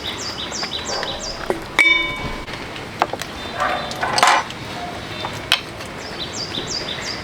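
A bird chirping in quick, high, falling notes, about three a second, near the start and again near the end. One sharp metallic clink rings briefly about two seconds in, and a short rustling scrape comes just past the middle.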